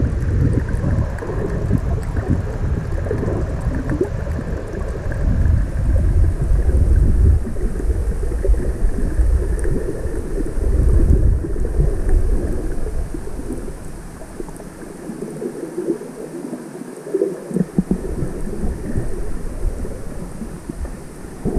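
Muffled, churning water noise picked up by a camera held underwater, mostly a deep uneven rumble. The lowest rumble drops away for about two seconds roughly three-quarters of the way through, then returns.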